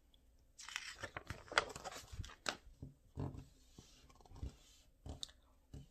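Pages of a picture book being turned and the book handled: papery rustling with quick clicks for a few seconds, then a few soft knocks.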